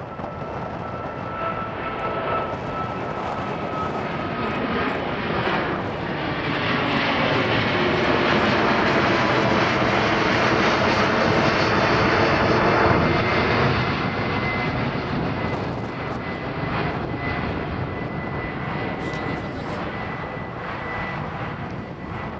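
Airbus A380's four jet engines passing overhead: a dense jet noise that builds to its loudest about halfway through, then fades as the airliner climbs away, with a thin whine audible over it before and after the peak.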